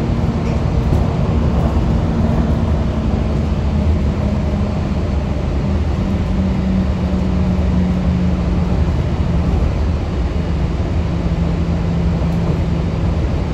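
Walt Disney World monorail running, heard from inside the cabin: a steady low rumble with a motor hum that shifts pitch a few times.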